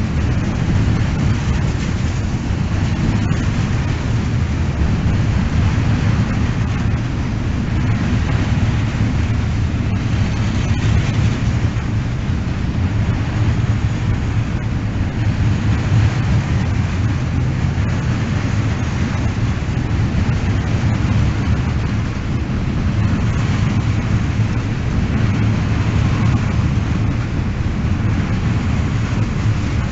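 Freight train of container flat wagons rolling past close by: a loud, steady rumble of steel wheels on the rails, with a few faint clicks.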